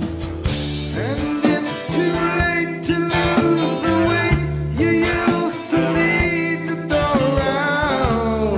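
Rock band playing live: guitars and a drum kit, with a man singing over them.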